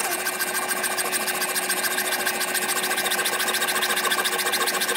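Hacksaw blade held against a steel rod spinning in a drill press, rasping steadily with a fast, even rhythm as it cuts a thin groove for an E-clip, over the steady hum of the drill press motor.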